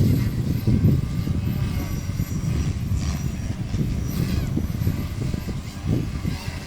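The Logo 200 making a loud, uneven low rumbling noise, strongest in the first second, then carrying on a little lower.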